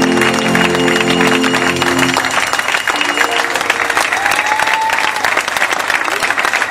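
Audience applauding over the last notes of the rumba music, which ends about two seconds in; the clapping carries on alone after that.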